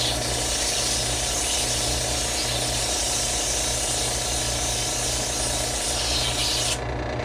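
A small power tool runs steadily under a coarse sanding hiss as a bronze pilot bushing is ground down with 80-grit abrasive, because it is slightly too big for the bore in the crankshaft. The sanding hiss drops out just before the end, and the motor stops right after.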